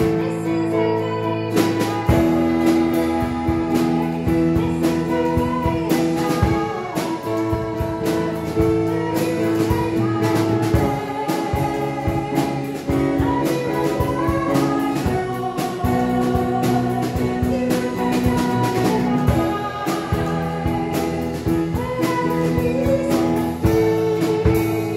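Worship song played on strummed acoustic guitar, a Yamaha Clavinova digital piano and violin, with singing.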